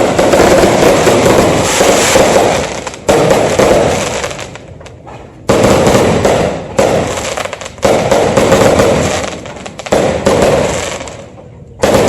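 Fireworks going off in a rapid series of bursts, each starting suddenly loud and fading over a second or two before the next one comes in.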